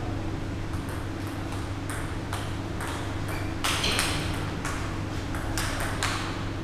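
Table tennis rally: the ball clicking sharply off the bats and the table in a quick, irregular run of hits, loudest about four seconds in, over a steady low hum.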